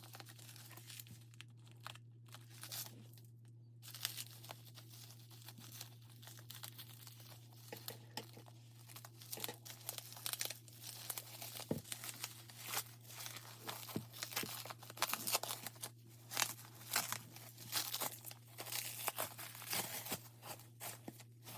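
Wrapping being torn and crinkled by hand to open a package: many short crackling rustles, busier in the second half, over a steady low hum.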